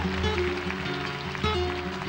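Acoustic guitar playing a brisk rhythmic introduction: plucked bass notes under short repeated chords.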